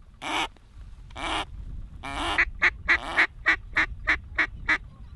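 Hand-blown waterfowl call sounded to a flock coming in over the decoys: three drawn-out notes, then a quick run of about eight short clipped notes, roughly three to four a second.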